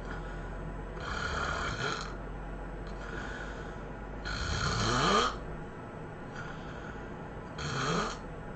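A sleeping person snoring heavily: three loud snores about three seconds apart, the middle one loudest, the pitch rising through each, with quieter breaths in between.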